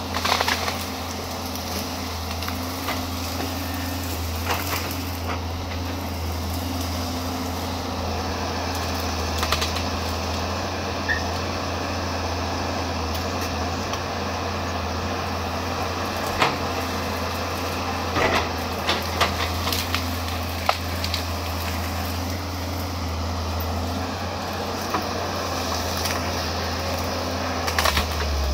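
Caterpillar 320C excavator's six-cylinder diesel engine running steadily under working load, with scattered sharp cracks and snaps of branches breaking as the bucket tears into brush and small trees.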